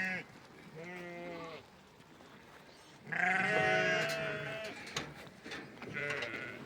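Sheep bleating: a quieter bleat about a second in, then a long, loud bleat about three seconds in, followed by a few shorter ones.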